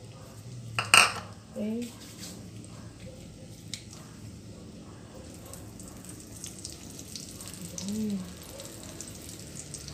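Breaded Spam fingers deep-frying in oil in a wok, with a light crackle of spattering oil throughout. A single sharp metal clank comes about a second in, and metal tongs click against the wok as the pieces are turned.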